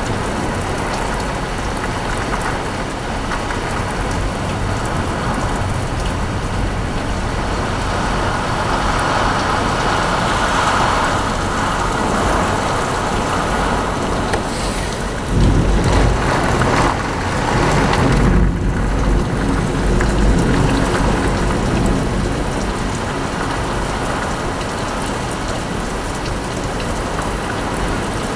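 Heavy thunderstorm rain pouring steadily; about halfway through, a loud rumble of thunder breaks in and rolls on for several seconds.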